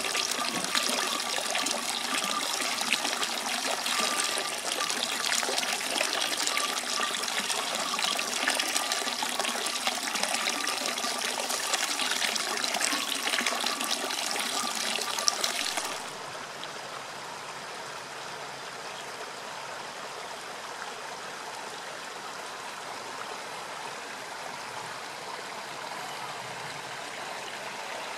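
Running water with a close, splashing trickle. A little past halfway it cuts abruptly to a quieter, even flow of a mountain stream under snow.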